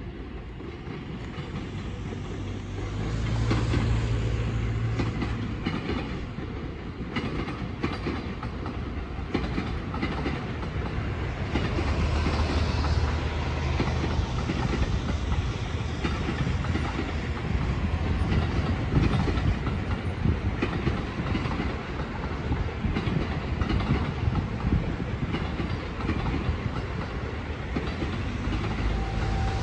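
Electric train running slowly through station tracks, its wheels clattering over rail joints and points over a steady rumble that grows louder about three seconds in.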